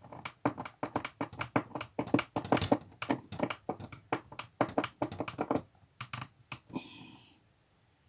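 Quick, irregular run of small clicks and taps from hands working screws, a screwdriver and bracket hardware. It stops about six and a half seconds in, and a short breathy sound follows.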